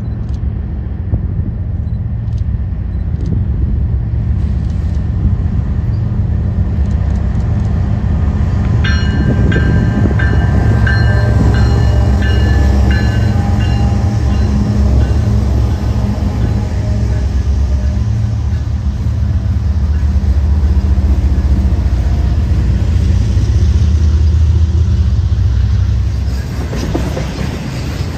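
Freight train rolling past at trackside, a steady heavy rumble of cars on the rails. For several seconds about a third of the way in, high-pitched squealing rises over the rumble, and the sound eases off near the end.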